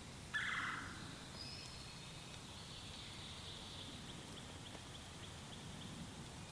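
A wild turkey tom gobbles once, a short call about a third of a second in and the loudest sound. Songbirds call faintly around it.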